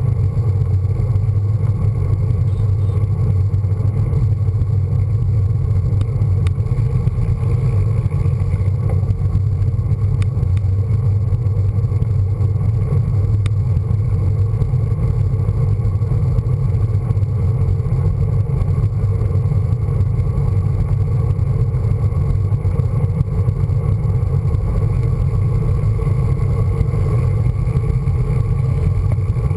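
Steady wind rumble on the microphone of a handlebar-mounted camera, with road-bike tyre and road noise, as the bike rides along at speed.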